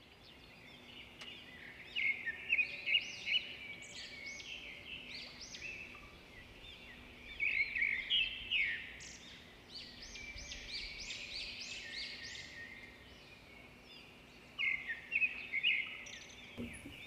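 Small birds chirping and twittering, in clusters of quick, arching calls that come and go, over a faint steady low hum.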